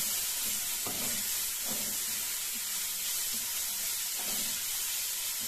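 Chopped onions sizzling steadily in hot mustard oil in a nonstick kadhai, stirred with a silicone spatula, with a few faint strokes of the spatula through the pan.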